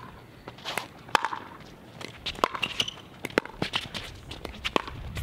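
Pickleball rally: sharp pops of paddles striking the plastic ball and the ball bouncing on the hard court, about one a second, with players' shoes scuffing and stepping on the court.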